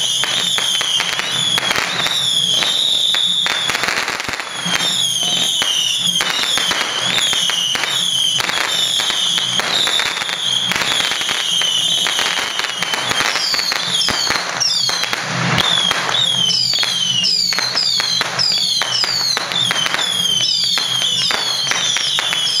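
Strings of firecrackers crackling continuously and densely, with a high whistling tone that keeps dipping and sliding above the crackle.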